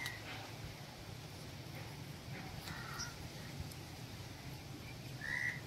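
A crow cawing a few times: short calls, faint about three seconds in and loudest near the end.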